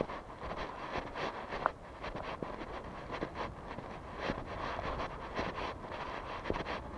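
Footsteps of a person walking at a steady pace, about one step every half second or so, over a murmur of outdoor street noise with wind on the microphone. A brief high squeak or chirp sounds about two seconds in.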